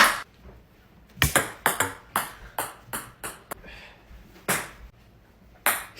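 Ping-pong ball clicking and bouncing on a hard table and off a plastic cup after a missed throw: a sharp hit at the start, then about a dozen irregular light bounces.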